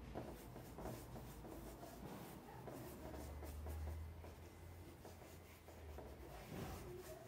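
Faint, irregular scratching strokes of a tool working a surface, over a low hum.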